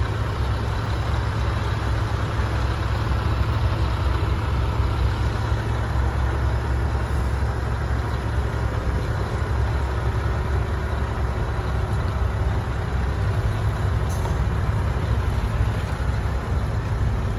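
Scania R730 heavy-haulage tractor unit's V8 diesel engine running steadily at low revs as the truck pulls a loaded low-loader slowly past.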